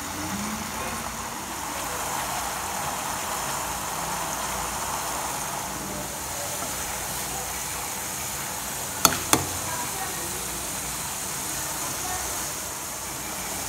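Butter simmering in a pan to make ghee: a steady sizzling and bubbling as its foam boils the water off. Two sharp knocks come close together about nine seconds in.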